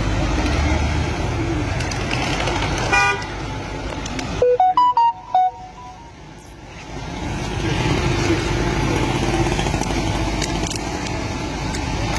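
Street traffic noise from passing cars and motorcycles. A short horn toot comes about three seconds in, then a quick run of beeping tones that change in pitch.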